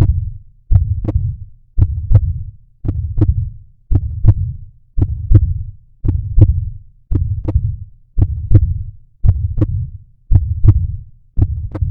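Heartbeat audio beating steadily in a double 'lub-dub' thump, a little slower than once a second (about 55 beats a minute).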